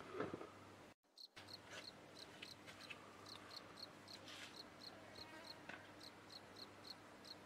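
Faint cricket chirping: short, even, high chirps about three a second over a quiet outdoor background, with the sound dropping out completely for a moment about a second in.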